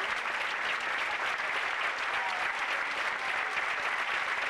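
A large theatre audience applauding, a dense, steady clapping of many hands that neither builds nor fades: an ovation for the dancer.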